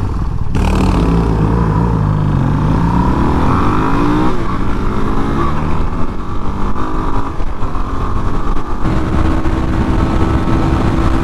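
Suzuki single-cylinder four-stroke motorcycle engine running on the road, with wind rushing over the microphone. About a second in, the revs drop, then climb again over the next few seconds and settle to a steadier pitch.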